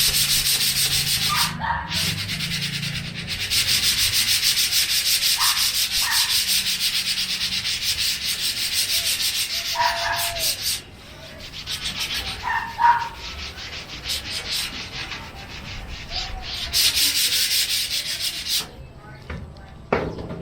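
Rust being sanded off a steel computer case in long runs of rapid scraping strokes, pausing briefly twice.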